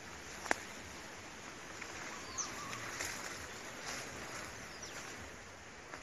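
Quiet outdoor ambience with a steady hiss and a few faint bird chirps around the middle, plus one sharp click about half a second in.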